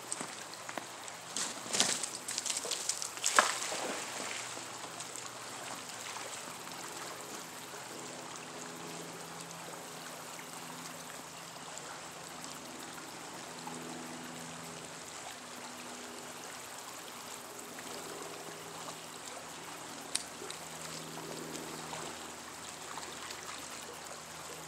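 Shallow creek water running steadily. There are a few sharp clicks and knocks in the first few seconds, the loudest about three and a half seconds in, and one more click near the end.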